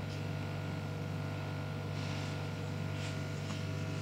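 Steady low background hum, with faint rustles about two and three seconds in.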